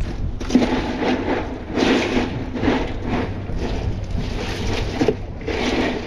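Ice crunching and scraping in an esky of iced blue swimmer crabs as a hand rummages through it, in a run of uneven rustling bursts.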